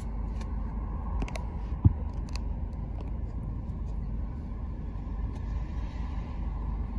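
Steady low rumble of a car's engine running at idle, heard from inside the cabin, with a few light clicks and one sharp thump about two seconds in.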